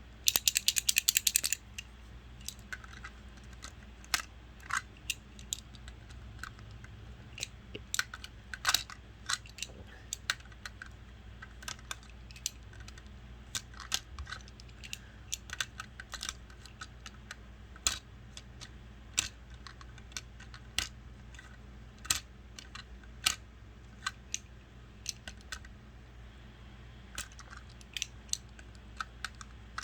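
Lego plastic bricks clicking and clattering as hand-built full bottles are handled and slotted into a brick-built belt driver. There is a quick rattle of rapid clicks at the start, then scattered single clicks and taps every second or so.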